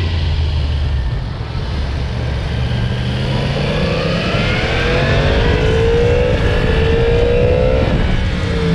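Yamaha MT-10's crossplane inline-four engine on its stock exhaust, running low at first, then accelerating with its pitch rising for several seconds. Near the end the throttle closes and the pitch falls.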